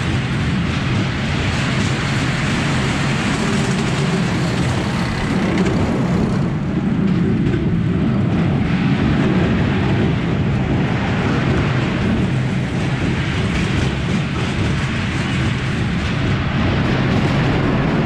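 E&F Miler kiddie coaster train rolling along its steel track, a steady loud rumble and rattle of wheels on rail.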